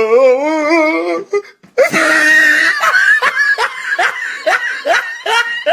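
A person laughing hard: a drawn-out, wavering laugh, then a loud noisy burst about two seconds in, then rapid rhythmic bursts of laughter, about three a second.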